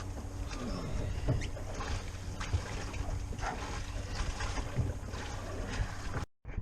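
Small-boat sound at sea: wind on the microphone and water against the hull over a low steady hum, with scattered small knocks and squeaks. The sound cuts out completely for a moment near the end.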